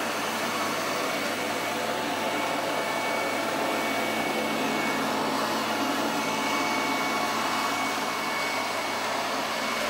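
AONUS S8 robot vacuum-mop running: a steady whir with a thin, high, even whine over it. The noise is not excessive.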